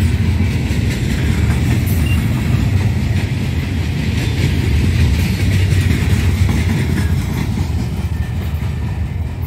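Freight train of open-top gondola cars rolling past: a steady heavy rumble of steel wheels on the rails, with faint clicking, easing slightly near the end as the last car goes by.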